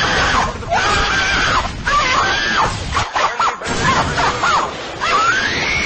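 High-pitched screaming voices, several rising and falling shrieks in a row over a dense noisy background, with a brief drop-out about three seconds in.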